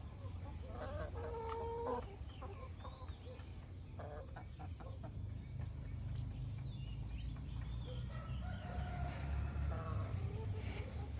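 Chickens calling in two spells, about a second in and again near the end, over a steady low rumble and a thin steady high tone.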